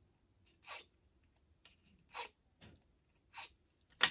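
Bone folder drawn over a strip of paper ribbon to curl it: four short scraping strokes, then a sharp tap near the end.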